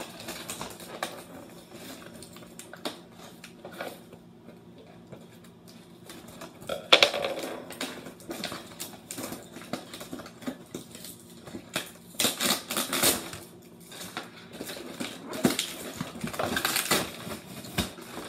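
Handling noises from a plastic toy foam-dart blaster and its packaging: scattered clicks and knocks, with one sharp knock about seven seconds in. Near the end come bursts of rustling and crinkling from a plastic bag of foam darts.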